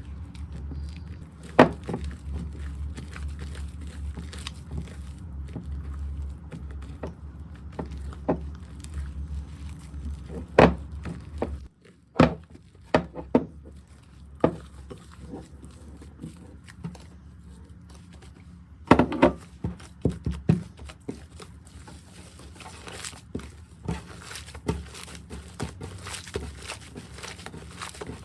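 Slime being handled and mixed: scattered sticky clicks and small pops, with a few sharper thunks, growing into denser crackling near the end. A steady low hum stops suddenly about twelve seconds in.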